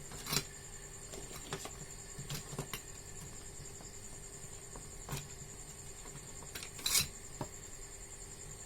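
Scattered metallic clicks and clinks of small tools and parts being handled on a repair bench: a sharp knock near the start, a cluster of light taps around two to three seconds in, and the loudest clack about seven seconds in. A faint steady high-pitched whine runs underneath.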